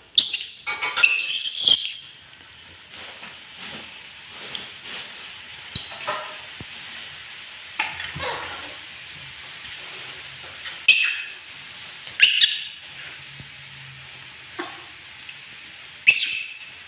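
Pet monkey screeching and squealing in short, sharp, high-pitched calls: a quick run of them in the first two seconds, then single shrieks every few seconds. These are the calls of an angry, agitated monkey.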